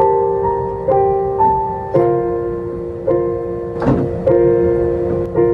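Piano played slowly: a chord struck about once a second and left to ring and fade, with a simple melody moving in the higher notes above it.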